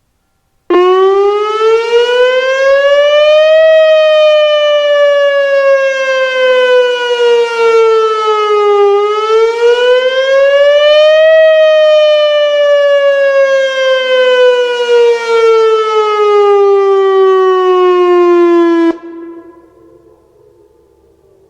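Whelen WPS-2909 electronic outdoor warning siren sounding the wail tone twice on its test. It starts suddenly, rises and then slowly falls in pitch two times, and cuts off abruptly, leaving a faint echo.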